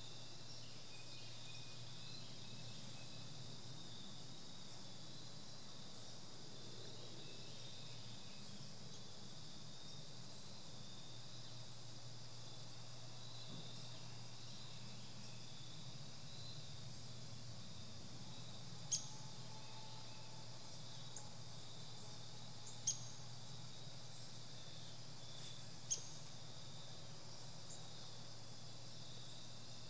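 Steady high chorus of crickets and other insects trilling over a faint low hum. Three short sharp high chirps stand out in the last third.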